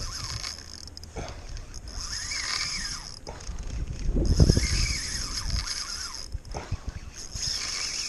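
Fishing reel whirring in four short bursts while a hooked fish is fought on a bent rod, with wind rumbling on the microphone and water slapping the boat.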